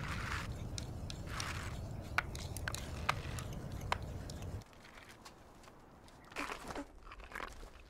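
Pilgrims' prostrations: sharp clacks, like wooden hand boards striking, and scrapes of bodies and clothing sliding over the road, over a steady low rumble. The rumble cuts off abruptly a little past halfway, leaving quieter scattered clacks and scrapes on gravel.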